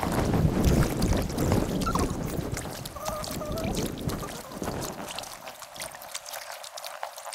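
Kayak paddling on a river, in sped-up time-lapse audio: water sloshing and many short paddle splashes and drips. Wind rumbles on the microphone for the first half, then drops away.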